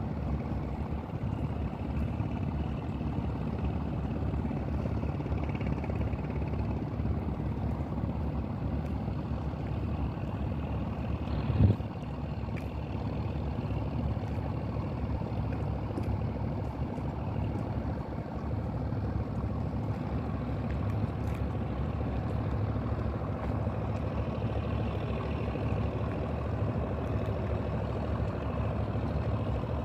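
A boat's diesel engine running steadily with a low hum, with a single sharp knock about twelve seconds in.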